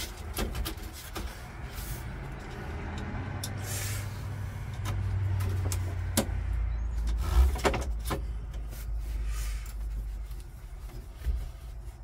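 Scattered clicks, taps and rattles of a screwdriver and wiring being worked at a truck's dashboard fuse panel, over a steady low rumble.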